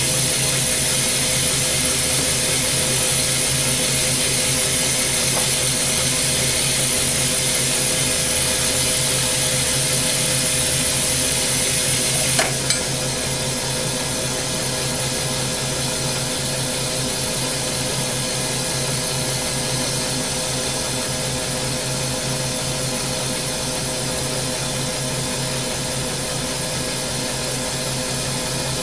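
Hydrogen-oxygen torch flame hissing steadily while it heats a spinning quartz tube on a glass lathe, with the lathe's steady hum underneath. About twelve seconds in there is a brief click, and the hiss drops slightly.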